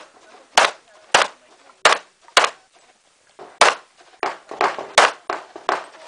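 Handgun shots fired in a string, about one every half second, then a pause of about a second before a quicker run of shots near the end.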